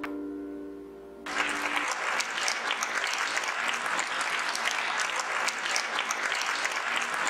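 A grand piano's final chord is dying away. About a second in, an audience breaks into applause, and the clapping holds steady for the rest of the time.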